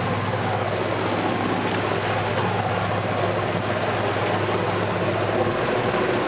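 A boat engine running at a steady low drone over a haze of wind and water noise; the hum drops out near the end.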